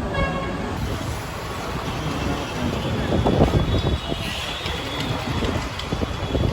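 Steady low rumble of vehicle noise, with a few louder moments about three seconds in.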